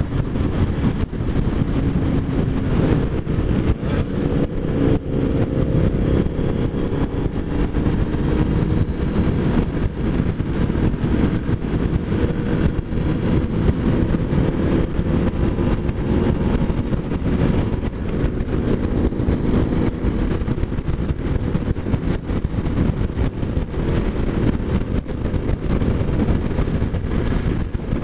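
Kawasaki motorcycle engine running at a steady cruise, its pitch drifting gently up and down, under heavy wind rush and road noise on the microphone.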